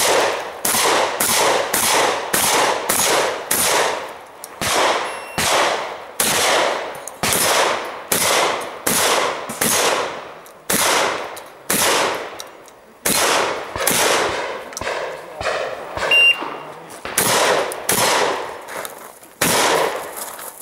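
Shotgun fire: a long run of single shots about one to two a second, each with an echoing tail. A brief high beep sounds partway through.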